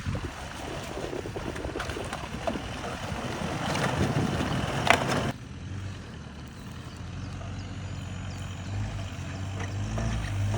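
Off-road vehicle driving on a rough mountain track: a rough rumble with scattered knocks, then after an abrupt cut about five seconds in, a quieter steady engine hum that grows louder near the end.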